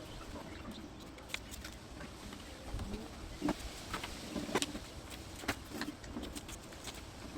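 A handful of sharp clicks and knocks from parts being handled during the speaker install, the loudest about three and a half and four and a half seconds in, over a low rumbling background.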